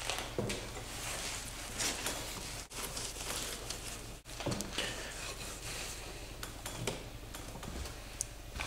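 A wet cloth rag rubbing and wiping along the painted side of a wooden boat: an uneven scrubbing hiss, broken by a few brief gaps.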